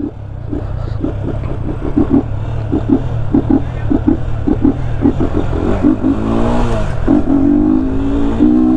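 Yamaha Fazer 250's single-cylinder engine running with its air filter removed, giving a loud, raw intake note. It pulses unevenly at low revs, then climbs in pitch about six seconds in, drops briefly at a gear change and pulls up again to a steady high note.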